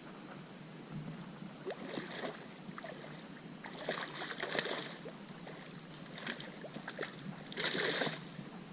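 A hooked redfish splashing at the water's surface beside a kayak, in two short bursts about four seconds in and near the end, with small knocks and clicks in between.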